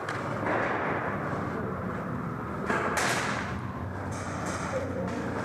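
Airsoft guns firing in an indoor arena: a steady clatter, with one loud, sharp crack of shots about three seconds in.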